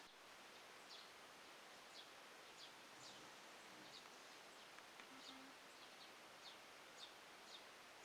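Faint outdoor ambience with a small bird repeating short, high, falling chirps, about one or two a second.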